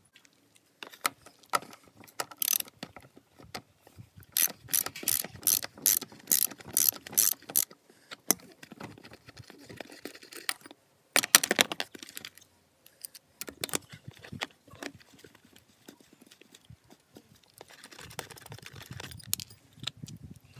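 Sharp mechanical clicks and rattles, with a quick regular run of about eight loud clicks a few seconds in and another dense burst of clicking about halfway through.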